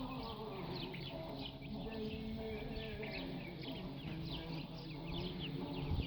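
Many birds chirping in quick, overlapping high chirps that keep falling in pitch, over lower drawn-out tones.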